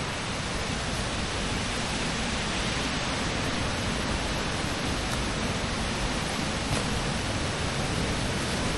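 Rushing water of a waterfall: a steady, even noise with no let-up.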